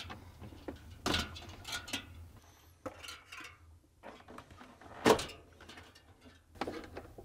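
Plastic wire-harness connectors being unlatched and pulled apart by hand: a series of short clicks and handling noises, the loudest click about five seconds in.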